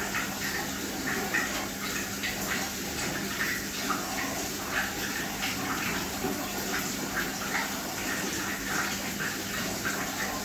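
Aquarium water running and bubbling steadily, with a faint steady low hum underneath.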